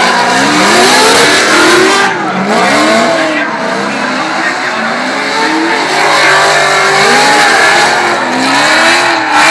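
Drift cars' engines revving up and down repeatedly under throttle as the cars slide sideways through the turn, over the hiss and squeal of spinning rear tyres.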